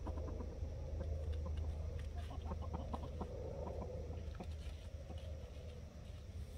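Buff Orpington chickens clucking, a run of short soft clucks that thins out toward the end, over a steady low background rumble.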